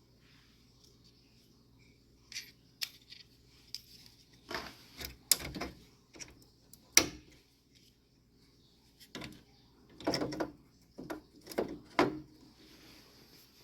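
Computer parts being handled by hand: scattered light plastic clicks, taps and rattles, with a sharp click about seven seconds in and a run of clicks near the end.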